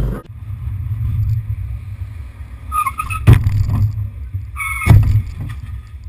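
Low, steady rumble of a car with its engine running in stopped traffic. It is broken twice, about a second and a half apart, by a short high tone followed by a sharp, loud knock.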